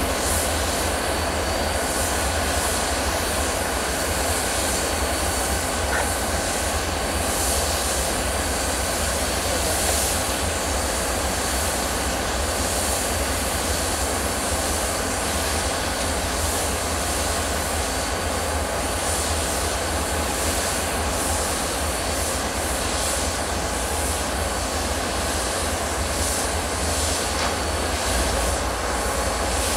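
GE ES44AH diesel-electric locomotives' engines running, a loud steady drone with a faint steady whine above it.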